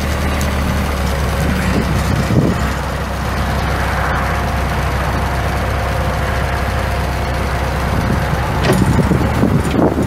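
Bobcat T140 skid steer's Kubota 2.2-litre four-cylinder diesel engine running steadily at a low, even speed.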